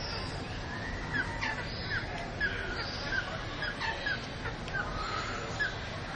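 Lovebirds chirping: short, high, downward-sliding calls repeated about twice a second, over a steady low background hum.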